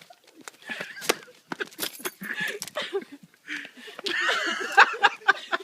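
People laughing and snickering, with scattered clicks and knocks throughout and a louder burst of voices about four seconds in.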